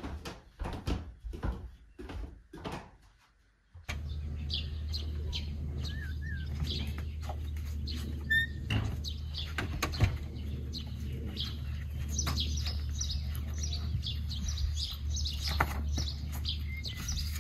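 Footsteps going down wooden stairs, a knock about every half second. Then birds chirp over a steady low hum, with shoes and slippers scuffing and tapping on a brick porch floor.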